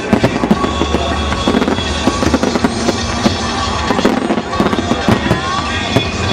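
Fireworks bursting and crackling in rapid succession, with many sharp bangs, while music plays alongside.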